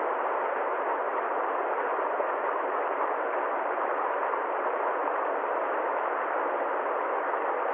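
Steady, even hiss of noise with no rhythm, tones or changes, sitting in the middle range with no deep rumble and no high sizzle.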